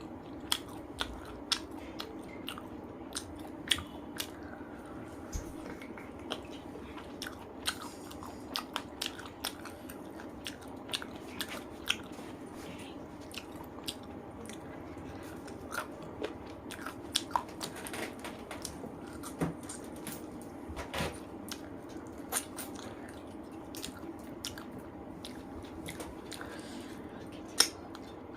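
Close-up eating sounds: chewing and biting on rice and spicy chicken curry, with irregular small wet clicks and smacks of the mouth and fingers.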